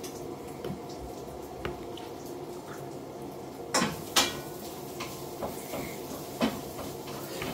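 A few sharp clinks and knocks, the two loudest about four seconds in, over a steady low hum.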